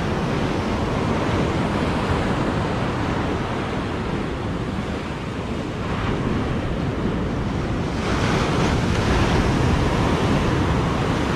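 Ocean surf washing onto a sandy beach, with wind on the microphone. The surf grows louder about eight seconds in as a wave breaks close by.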